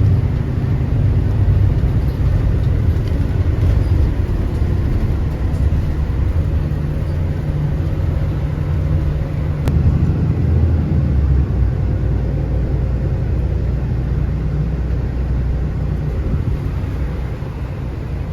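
Road vehicle running with a steady, loud low engine and road rumble, as heard from on board a moving bus.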